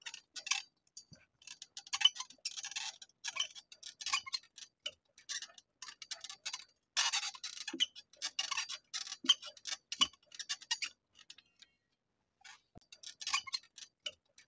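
Light metallic rattling and clinking from a Royal Enfield Hunter 350, engine off, as the bike is shaken by hand, in irregular bursts with a short pause near the end. The rattle comes from loose nuts and bolts on the bike.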